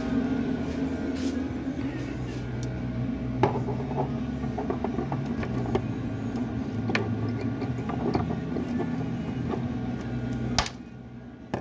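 Pliers clicking and snipping now and then as they cut off the protruding ends of plastic-welder staples, over a steady low hum that cuts out near the end.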